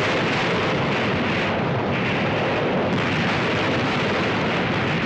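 Film battle sound effects of tank gunfire and explosions, blended into a steady, continuous wash of noise rather than separate distinct shots.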